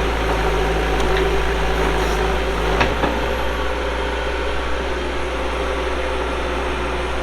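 Backhoe's diesel engine running steadily at a low, even pitch, with a couple of short knocks about one and three seconds in, as the machine works through deep mud.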